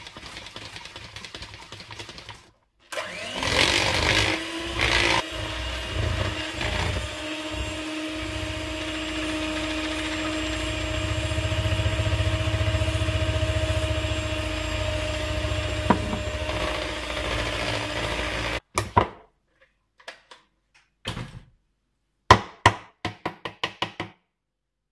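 Electric hand mixer on its stand beating flour into an egg, sugar and oil batter: it stops briefly, then runs steadily for about fifteen seconds and switches off suddenly. A string of sharp clicks and taps follows as the beaters are knocked and pulled out of the mixer.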